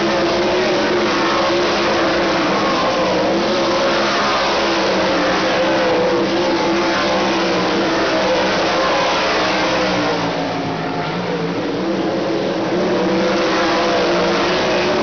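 A field of 410 winged sprint cars racing on a dirt oval, their 410-cubic-inch V8 engines running flat out. Overlapping engine notes rise and fall in pitch as cars sweep past, forming a continuous loud din that eases briefly about eleven seconds in.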